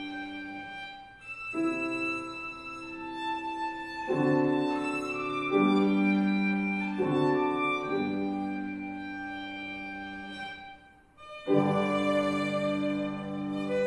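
Violin and piano playing classical music together: the violin plays long held bowed notes over the piano accompaniment. Near the end the music breaks off briefly, then the next phrase starts.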